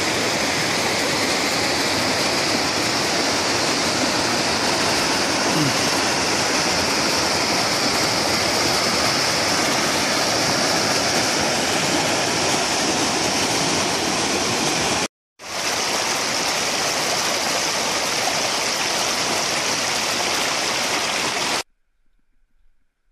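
Fast river water rushing over boulders in rapids: a loud, steady rush. It cuts out for an instant about fifteen seconds in, resumes, and stops abruptly near the end.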